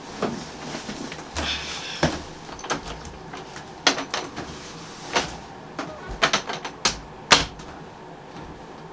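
Typing on a laptop keyboard: irregular key clicks, the sharpest and loudest one about seven seconds in.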